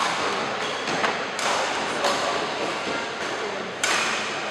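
Badminton rally: a series of sharp racket strikes on the shuttlecock and players' footfalls on the court, echoing in a large hall.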